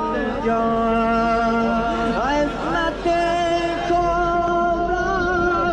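A single voice singing a slow chant: long held notes joined by winding, ornamented glides in pitch.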